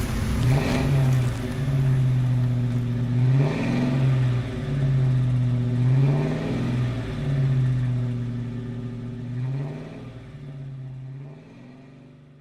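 Car engine being revved repeatedly, its speed dipping and rising again every second or two, fading out over the last few seconds.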